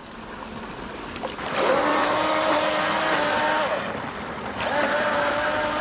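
Atomik Barbwire 17-inch RC boat's electric motor whining steadily as the boat runs on the creek. The whine starts about one and a half seconds in, drops out briefly past the middle and picks up again. It is running on a 2S nickel-metal hydride pack, which the owner thinks gives it too little power.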